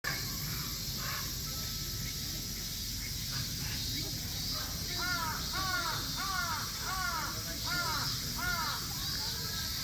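A bird calling six times in quick succession, starting about halfway through: harsh, cawing notes, each rising and falling in pitch, over a steady background hum.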